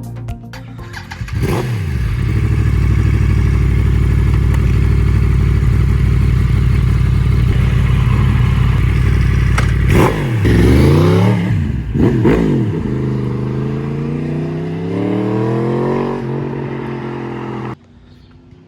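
Motorcycle engine with its catalytic converter deleted, catching and settling into a steady idle. About halfway through come two quick throttle blips, then a slow rising rev, and it cuts off abruptly near the end.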